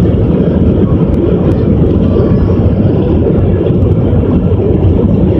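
Airbus airliner's jet engines and rushing air heard from inside the cabin during takeoff: a loud, steady, deep roar.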